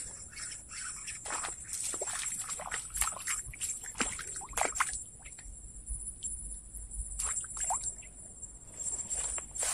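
Steady high-pitched insect buzz, with many short chirping calls scattered through it and faint water sloshing.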